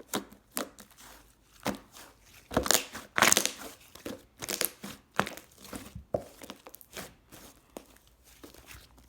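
Hands squeezing and poking a pink-and-purple mixed slime, making irregular wet clicks and crackly pops, loudest a few seconds in.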